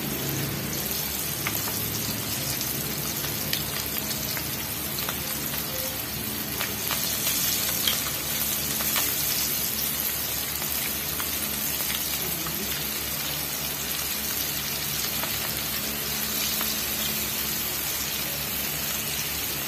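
A fresh batch of flour-coated chicken pieces deep-frying in hot oil in a wok: a steady sizzle with scattered small pops and crackles.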